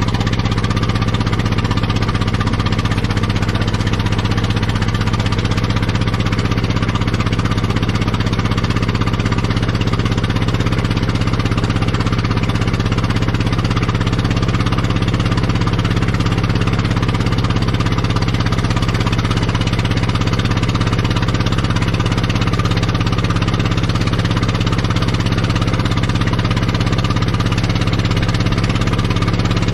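Engine of an old Caterpillar D8 bulldozer, out of use for 26 years, running steadily.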